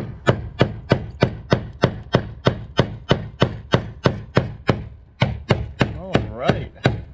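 Hammer blows on the end of a large flat-blade screwdriver braced against the rusted lock ring of a fuel pump module: a steady run of sharp strikes, about three a second. The blows are driving the seized ring around to loosen it so the pump can come out of the tank.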